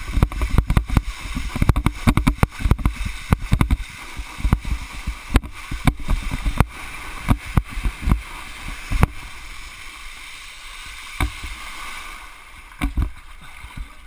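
Water rushing under a cable-towed wakeboard, with the wind buffeting the microphone. Dense low thumps run through roughly the first nine seconds, ease into a steadier hiss, and a few thumps return near the end.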